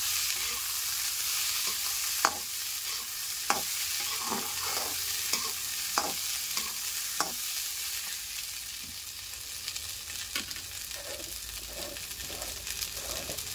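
Corn kernels sizzling in hot oil in a metal kadhai while a metal spatula stirs them, scraping and clinking sharply against the pan. The clinks come mostly in the first half; later the steady sizzle carries on more quietly.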